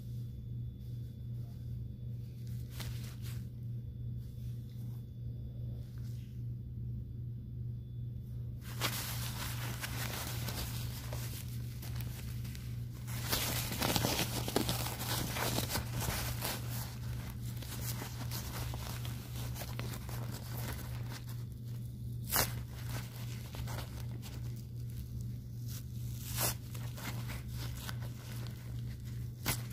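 Adult diaper's plastic outer backing crinkling and rustling as it is handled close to the microphone, loudest in the middle, with a few sharp crackles near the end. A steady low hum runs underneath.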